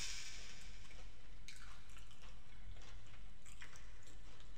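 Wet, sticky sounds of a sauce-covered boiled prawn being pulled apart and peeled by hand: scattered small crackles and clicks of shell, with sauce dripping and squishing in a glass bowl.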